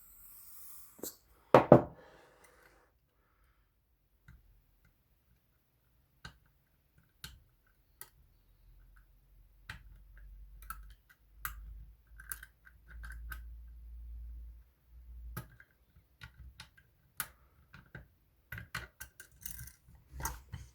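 Sparse, light metallic clicks of a pick and tension tool working the levers of a Union 3G110 five-lever lock, with one loud knock a couple of seconds in.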